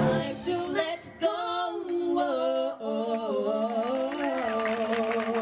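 A woman's voice singing, holding long, drawn-out notes that slide between pitches, with little accompaniment under it.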